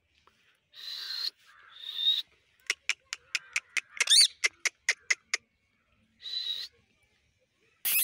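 Caged rose-ringed parakeets calling: a few harsh, raspy screeches, then a quick run of about a dozen short sharp chirps at roughly four a second, and another screech near the end.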